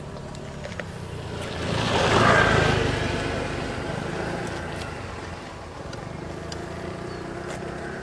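A motor vehicle passing close by: a broad engine-and-road noise that swells to its loudest about two seconds in, then slowly fades.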